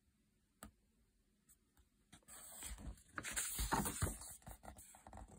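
A single light tap, then the paper page of a picture book rustling for about three seconds as it is turned.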